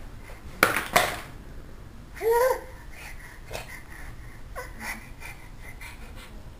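A toddler babbling: two short breathy bursts, then a brief high-pitched call that rises and falls about two seconds in, with a few small babbled sounds after.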